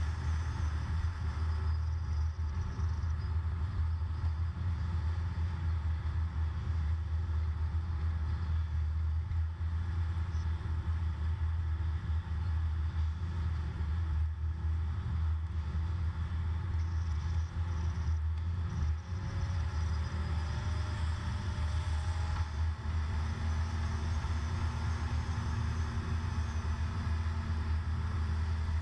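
Steady low drone of a car's engine and tyre noise at highway speed, heard from inside the car. A faint whine rises slowly in pitch over the last several seconds.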